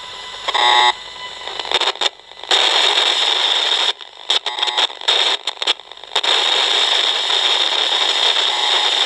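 Electrosmog meter's loudspeaker giving a loud, harsh hiss and crackle, cut by several short dropouts in the middle, with a brief buzzing tone about half a second in. It is the meter rendering electrical interference on the mains wiring, which the speaker takes for line pollution fed in over the antenna cable and media box.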